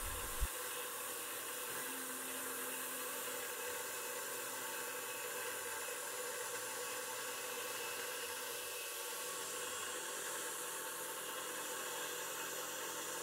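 Steady hiss of a Fog Buster air-mist coolant nozzle spraying onto an end mill as it cuts aluminium plate on a CNC milling machine, with the machine's faint steady hum underneath. A single short click comes just after the start.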